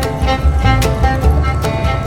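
Background music with a steady beat and a pulsing bass line.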